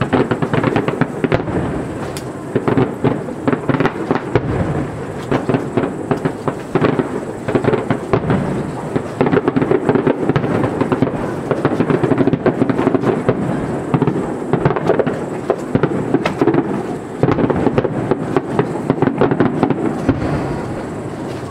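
Fireworks display: a dense barrage of aerial shell bursts and crackles, many bangs a second over a continuous rumble, easing off near the end.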